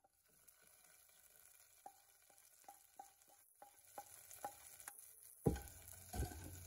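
Wooden spatula stirring thick sweet pongal in an aluminium pressure cooker, knocking lightly against the pot about two or three times a second. A louder knock comes about five and a half seconds in, and a low steady hum follows it.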